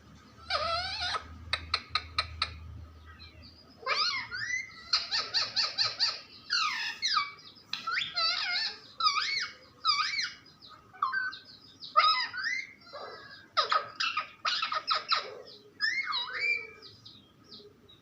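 Pet parrot calling in quick clusters of squeaky chirps and whistles that bend up and down, with short pauses between the clusters.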